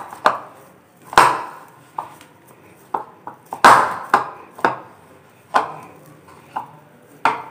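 Hands kneading besan sev dough in a plastic bowl: about ten irregular soft thumps and slaps as the dough is pressed and pushed against the bowl.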